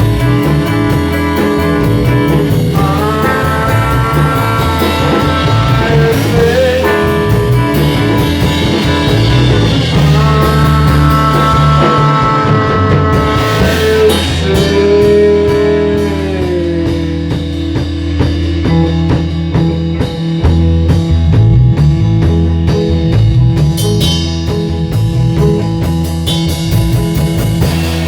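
A band plays an instrumental rock passage at rehearsal: a lead guitar holds long notes that bend up and down, over drums.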